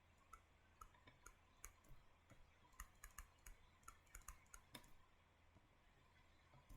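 Faint, scattered clicks and taps of a stylus on a tablet screen while writing, most of them in the first five seconds.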